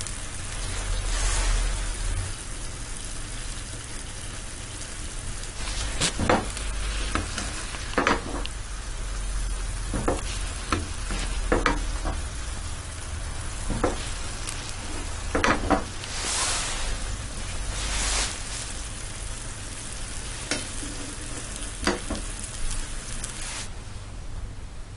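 Chicken legs sizzling in bubbling sauce in a frying pan, with a metal ladle knocking against the pan a dozen or so times as the sauce is spooned over them. The sizzle stops about a second before the end.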